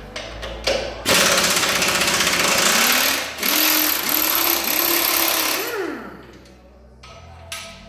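Power tool running hard in two bursts of about two seconds each, with a brief break between them and a drop in level after the second.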